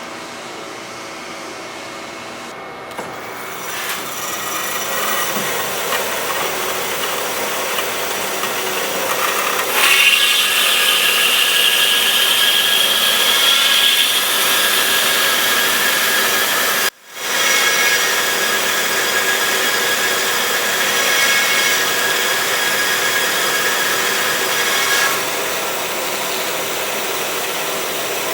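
DoALL DC-280NC horizontal band saw cutting metal stock, a steady rasping hiss of the blade through the workpiece. About ten seconds in, a high whining tone comes in suddenly and rises slightly in pitch. The sound breaks off for an instant a little past halfway.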